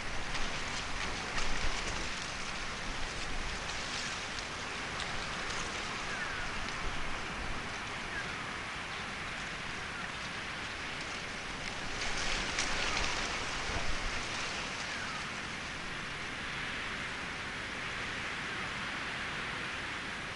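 Steady rain falling, with scattered sharper drop ticks and louder spells about a second in and again around twelve to fourteen seconds in.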